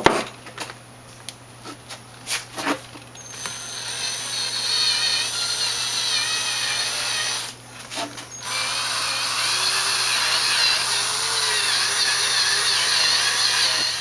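Cordless drill boring a hole through the thin aluminium wall of a screen door closer's cylinder. There are a few sharp clicks first; the drilling starts about three seconds in, stops briefly just after the halfway point, then runs on steadily.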